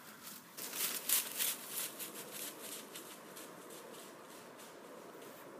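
Quick footsteps crunching through dry fallen leaves, growing fainter as the walker moves away.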